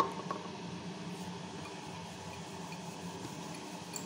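Steady low mechanical hum, with two light clicks at the very start.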